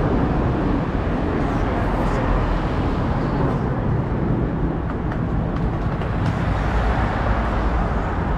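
Steady traffic noise from cars driving along a busy multi-lane street.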